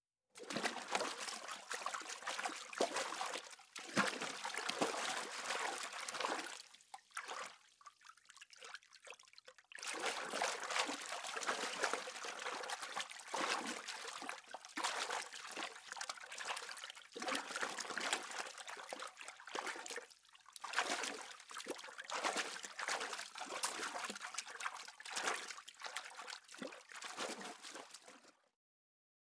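Water trickling and splashing in small, uneven spurts. It falls away for about three seconds a third of the way in, then resumes.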